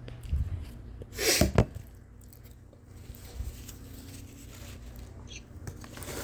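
A single loud human sneeze about a second and a half in: a short voiced 'ah' that drops in pitch, then a sharp burst.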